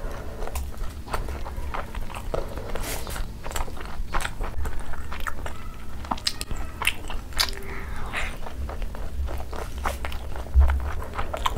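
Close-miked mukbang chewing and biting of dumplings: a steady stream of short wet mouth clicks and smacks, with a dull low thump near the end.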